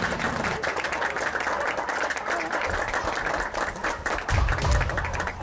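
Applause: a small group clapping their hands.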